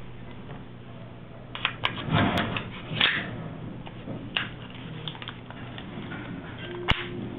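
AR-15 charging handle and bolt being worked by hand: a burst of metallic clacks and rattling about two seconds in, then a few single clicks, the sharpest near the end.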